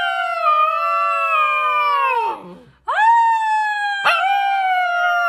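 A husky-type puppy howling. One long howl holds high, then slides down and fades a little after two seconds in; a second starts sharply about half a second later and holds high, slowly sinking in pitch.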